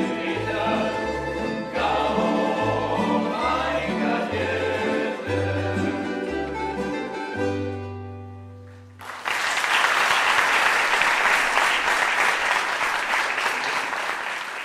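Tamburica orchestra, small plucked tamburicas over a berde bass, playing the final bars of a folk medley and closing on a held chord that fades away. About nine seconds in, the audience starts applauding, and the applause is louder than the music.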